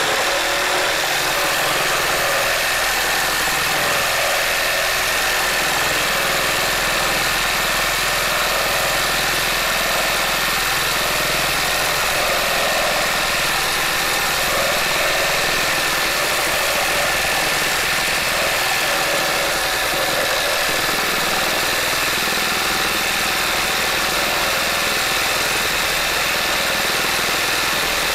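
Makita JR3050T corded reciprocating saw running at full speed, its long Bosch S 1531 K wood blade cutting steadily through a thick timber beam. The motor and blade strokes make a loud, even, unbroken noise.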